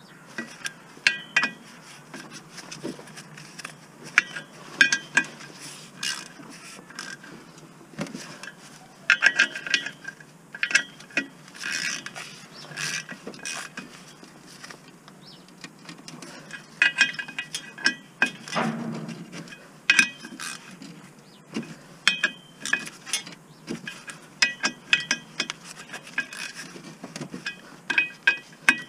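Ratchet spanner clicking in quick runs as it turns the bolts of a clutch pressure plate on the flywheel, with metal clinks between runs and one duller knock a little past halfway.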